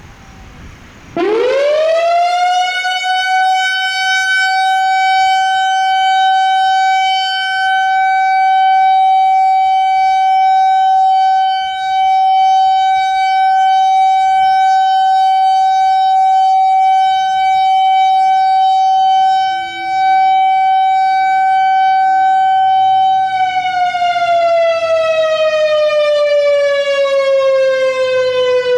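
Whelen WPS-4004 analog electronic outdoor warning siren sounding a steady alert signal in a test. The high-pitched tone winds up within about a second of starting, holds one steady pitch for a little over 20 seconds, then begins to wind down, falling in pitch near the end.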